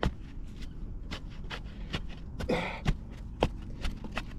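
Soil being tamped around a wooden fence post with a stick in the post hole: a steady run of short dull knocks, about three a second.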